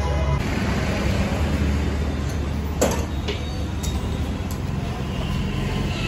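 Background music with a steady low bass, and over it a few sharp metal clanks from work on a motorcycle wheel, the loudest about three seconds in.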